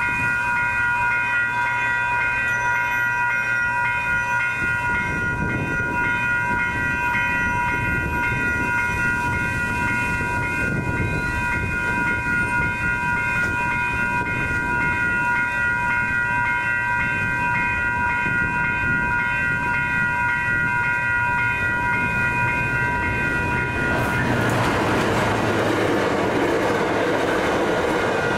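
Electronic railroad crossing bells ringing steadily together. About 24 s in, a Metrolink commuter train arrives and passes through the crossing, its rumble and wheel noise rising under the bells.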